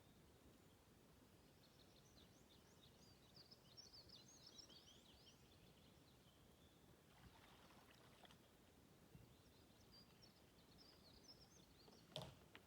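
Near silence in open nature, with faint high bird twittering coming and going and one sharp knock near the end.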